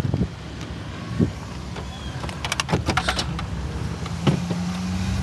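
Low rumble inside a car, with a quick run of clicks in the middle. About four seconds in there is a thump, and a steady low hum starts with it and holds.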